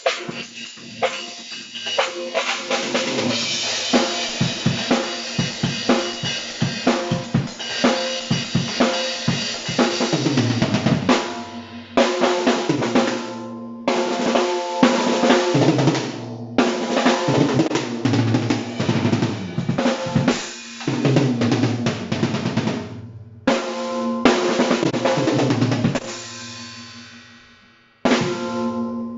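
Tama Imperialstar acoustic drum kit being played: bass drum, snare, toms and cymbals in busy phrases broken by short stops. Near the end the playing stops and the ringing fades out before a hit starts it again.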